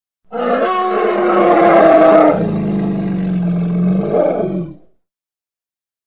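Elephant roar sound effect: a single long call lasting about four and a half seconds. It drops to a lower, rougher pitch about halfway through and gives a brief upward turn just before it cuts off.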